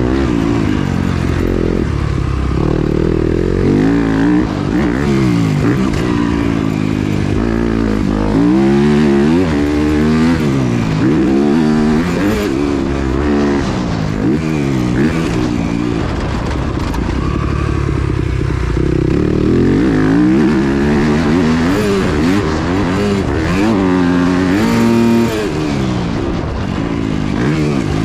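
Yamaha YZ250F four-stroke single-cylinder engine heard onboard while riding, its pitch climbing and dropping back again and again as the rider works the throttle and gears.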